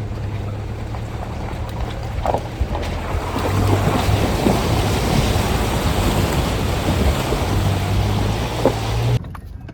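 A four-wheel-drive vehicle driving: a steady low engine drone under loud, rushing wind and road noise.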